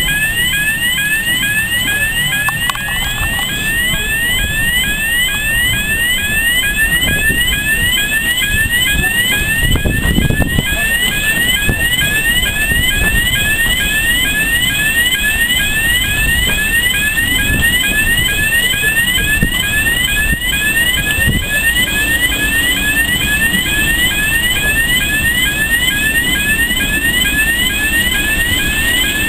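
Electronic warning alarm sounding a rapidly repeated rising sweep tone, about two to three sweeps a second, over the low rumble of railway coaches rolling slowly past.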